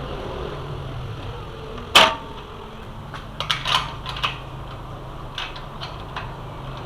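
Sharp metallic clicks and clacks from working a mortise lock on a steel grill door: one loud clack about two seconds in, then a quick cluster of clicks a second later and a couple more near the end.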